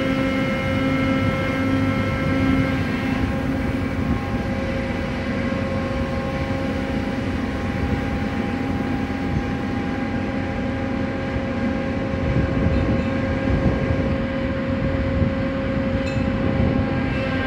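Cargo-ship crane machinery running steadily, a rumble with a constant hum of several tones, while working a clamshell grab that closes on bulk grain in the hold.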